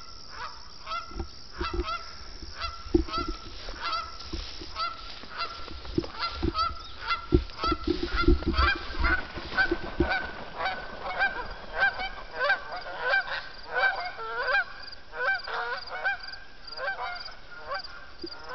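A flock of Canada geese honking, many short calls repeating and overlapping without a break. There are low rumbles in the first half.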